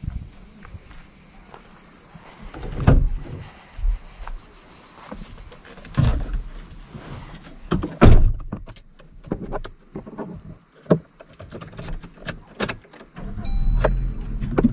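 Clicks and knocks of someone getting into a 2018 Suzuki Ignis, with a loud door thump about eight seconds in. A steady high buzz, most likely cicadas, sounds outside and is muffled once the door is shut. About a second before the end, the car's 1.2-litre four-cylinder petrol engine starts and settles into a hum.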